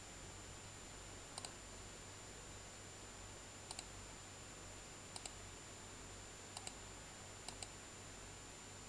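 Computer mouse button clicking: five pairs of quick clicks spaced a second or two apart, over a steady faint hiss and a thin high whine.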